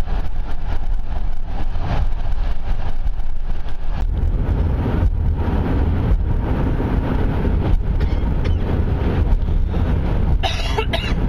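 Steady low rumble of a car's tyres and engine heard from inside the car while driving over a long bridge deck, with a few faint knocks along the way.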